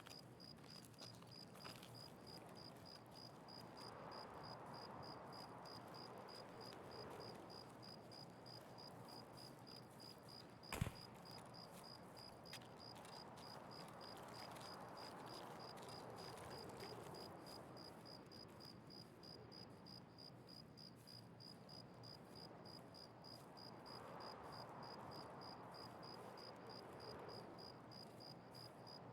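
A cricket chirping steadily, a high pulsed note about twice a second, over faint background noise. A single sharp click about eleven seconds in.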